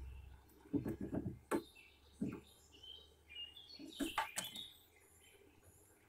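A Eurasian jay moving in to a wooden bird feeder: a few short clusters of knocks and flutters on the wood, the sharpest about four seconds in, with faint chirping of small birds between them.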